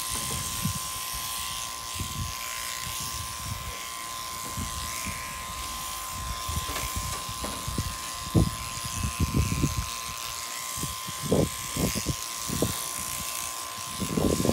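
Sheep-shearing handpiece, driven by an overhead shearing motor, running with a steady whine as it cuts through a ram's fleece. Irregular low thumps and bumps come from handling in the cradle.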